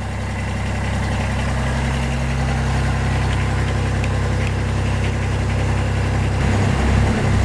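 2004 Kubota BX23D tractor's three-cylinder diesel engine idling steadily, a little warmed up. Its pitch wavers briefly near the end.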